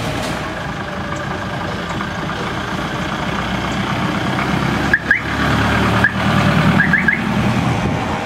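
Street traffic: car and motorcycle engines running as vehicles drive by, the engine sound growing stronger about halfway through. A few short, high, rising chirps sound around the middle and again a couple of seconds later.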